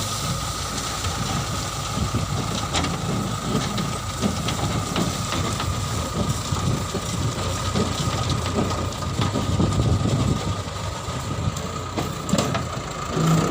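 Heavy diesel machinery running steadily, with a constant whine and irregular rattling and knocking throughout.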